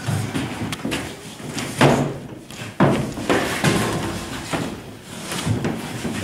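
A thin plywood panel flexing and knocking as it is laid over a plywood canoe hull, with several sharp wooden knocks and thumps between rustling and scraping.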